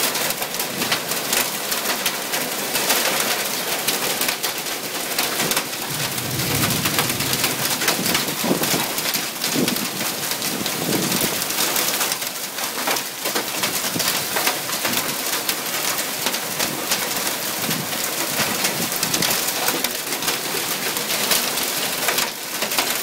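Hail and heavy rain drumming on a tin roof overhead: a dense, steady clatter of countless small impacts.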